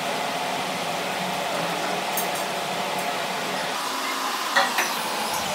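A steady, even hiss of background noise, like a fan or air conditioning running, with a brief faint sound about four and a half seconds in.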